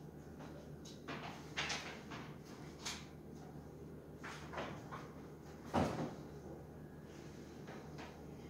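Scattered short rustles and light knocks of things being handled, with one louder bump about six seconds in, over a low room hum.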